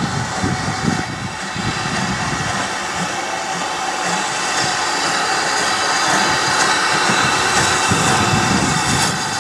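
Steam locomotive letting off steam: a steady hiss that grows slightly louder, over an irregular low rumble.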